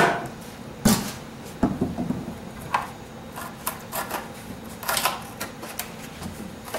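A long board being pulled out from between shelves: a few sharp knocks in the first two seconds, then lighter clatter and tapping as it is worked free.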